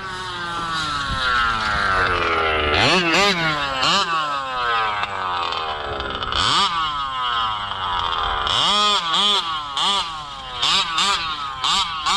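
Two-stroke big-bore engine of a large-scale gas RC car revving up and down, its pitch rising and falling, with a quick run of short throttle blips in the second half.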